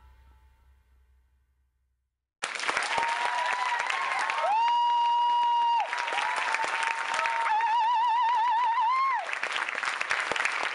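Dance music fades out to silence. About two seconds in, an audience starts applauding and keeps it up, with long high-pitched calls on top: one held steady and one warbling.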